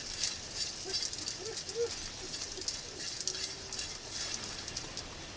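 Steady, crackly hiss of a portable propane heater burning. A few faint, brief low tones come through about a second in, and a short steady tone a little past the middle.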